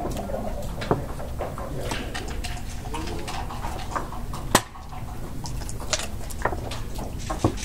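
Backgammon checkers and dice clicking and clacking on the board during play, with one sharp knock about four and a half seconds in as the loudest sound, over a steady low room hum.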